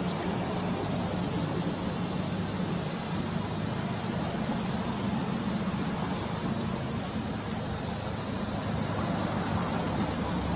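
Subaru Legacy B4 RSK's twin-turbo flat-four idling steadily through an aftermarket BLITZ exhaust.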